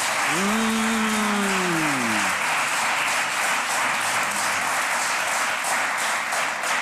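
Studio audience applauding steadily. A man's drawn-out vocal sound, rising and then falling, is held for about two seconds near the start.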